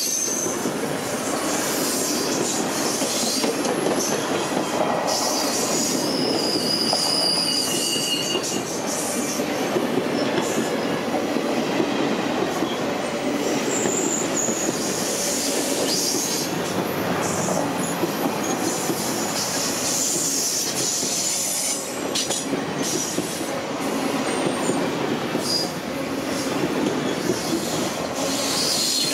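Circus train passenger cars rolling past close by: a steady rumble of steel wheels on the rails with clicking over rail joints. Short high wheel squeals come a few times.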